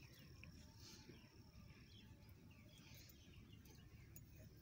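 Near silence: faint outdoor background with a low rumble and a few faint, short, high chirps.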